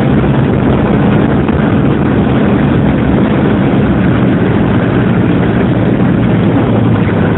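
Snowmobile engine running steadily as the machine drives along a snowy forest trail, heard from the rider's seat.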